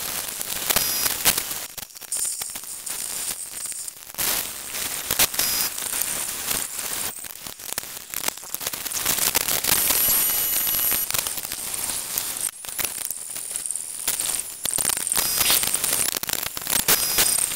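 Pneumatic impact wrench hammering in stretches of a few seconds with short pauses, running bolts in to put the transmission, cradle and car back together.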